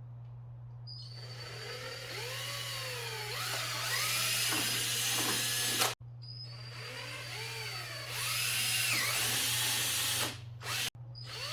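Power drill boring holes in a front lip splitter. The motor whine sweeps up and down in pitch as the trigger is worked, over several drilling runs that break off abruptly twice, with a steady low hum underneath.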